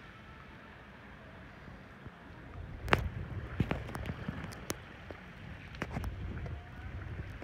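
Wind rumbling on the phone's microphone, building about two and a half seconds in, with a few sharp clicks and knocks from the phone being handled and re-zoomed.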